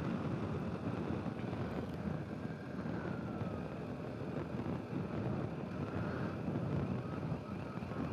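Riding noise from a BMW R 1250 GS motorcycle picked up by a helmet intercom microphone: a steady rush of wind over a muffled engine rumble. Faint rising and falling tones come and go.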